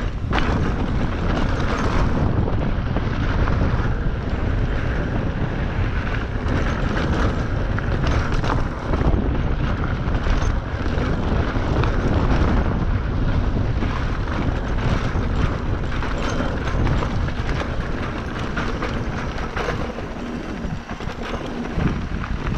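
Wind rushing over the microphone of a camera on a mountain-bike rider descending a rough trail, with constant rumble and many short rattling jolts from the bike over rocks and bumps.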